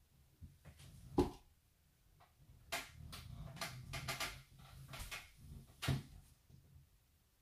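Cloth scarf rustling and brushing as it is tucked and adjusted around the head, with a string of short sharp knocks, the loudest about a second in and about six seconds in.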